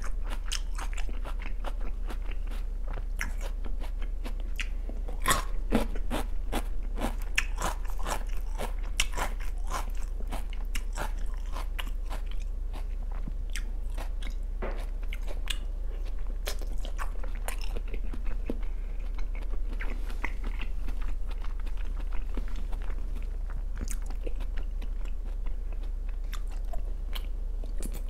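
A person chewing and eating raw salmon sashimi, picked up with chopsticks and put in the mouth near the end, heard up close: a long run of small mouth clicks and smacks. A steady low hum runs underneath.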